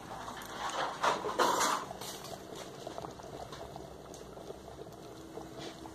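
A pot of liquid bubbling at a boil on the stove, a steady fine bubbling crackle. There are a few brief louder sounds in the first two seconds.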